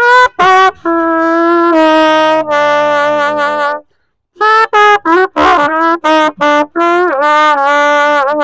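Solo trumpet playing a slow melody: two short notes, then long held notes, a short break about four seconds in, then a run of short notes and another phrase of held notes bent down in pitch near the end.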